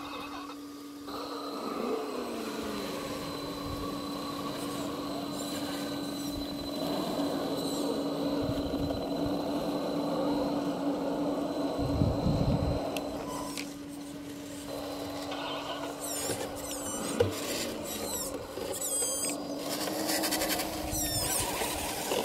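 Electric drive motor and gearbox of an Axial SCX10 II RC rock crawler whining steadily as it climbs, fading slightly as it moves away. Fluttering high squeaks come through over the last few seconds.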